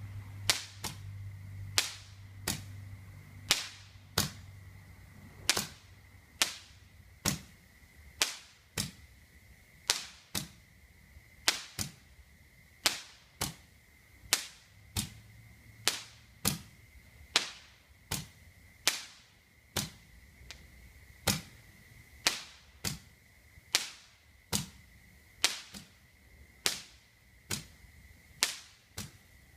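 Fireworks going off in a long, even series of sharp bangs, about one every three-quarters of a second, each with a short ringing tail. A steady high tone runs underneath.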